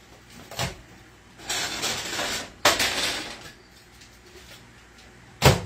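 A frying pan being dragged across an electric stove's coil burners: a scraping stretch with a metal clank in the middle, then a sharp, loud knock near the end.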